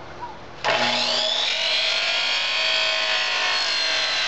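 Power chop saw switched on about half a second in, its motor whine rising quickly and then holding steady as the blade cuts through the wooden stock of an air rifle.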